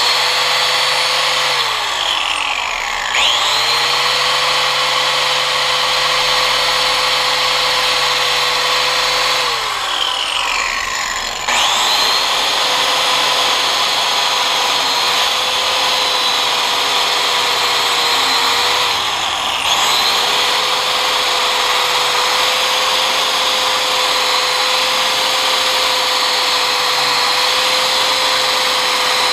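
Grinder with a steel wire wheel running steadily while brushing oxidation off an aluminum motorcycle fork tube, a constant whine over a hiss of bristles. Its pitch sags and comes back up three times.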